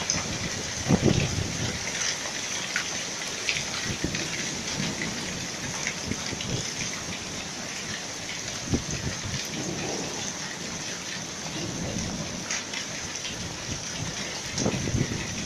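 Hail falling: a dense, steady patter of small hits. A few low thumps come through it, about a second in, near nine seconds and near the end.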